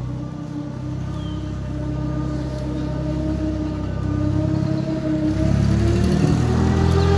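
A motor vehicle's engine running close by as it comes past, getting louder and rising in pitch over the last couple of seconds.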